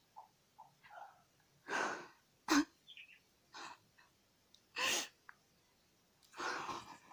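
A woman stifling laughter behind her hand: several short, breathy snorts and puffs of air through the nose and fingers, the sharpest about two and a half seconds in.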